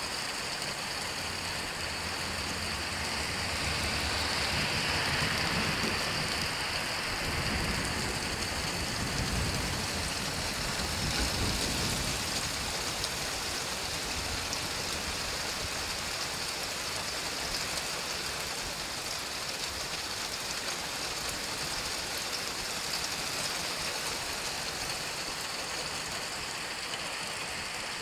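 Heavy thunderstorm downpour of rain mixed with hail pelting the asphalt and puddles, a steady dense hiss. A low rumble swells and fades in the first half.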